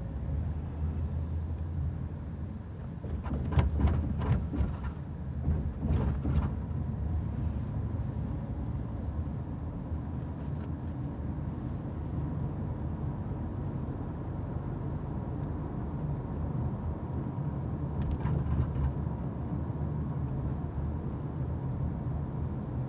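Road noise of a 2014 Mazda 6 (GJ) driving over rough road, with clusters of short knocks and rattles about three to six seconds in and again around eighteen seconds. It is an unexplained body knock that comes only on uneven surfaces and seems to come from the trunk or from behind a rear strut; the cause is unknown.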